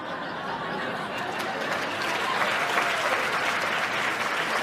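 Live audience applauding: dense, steady clapping that builds gently in the first second or two and then holds.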